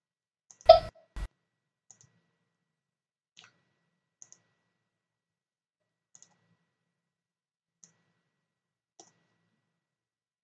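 Computer mouse clicking: single light clicks every second or two, with a louder thump and a low knock about a second in.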